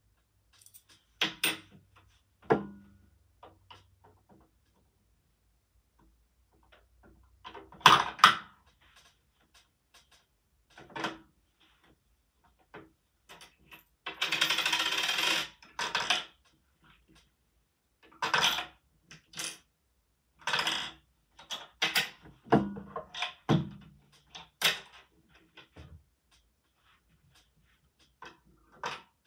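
Coins dropping and clattering through a Lego brick coin mechanism, with scattered clicks and knocks of the plastic parts. About halfway through comes a steadier rattle lasting about two seconds.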